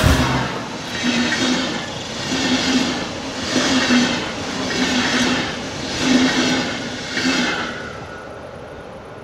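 Passing TEE Rheingold passenger coaches, their wheels running on the rails at speed, the noise swelling and falling about once a second as each bogie goes by. It fades as the last coach passes, a little over seven seconds in.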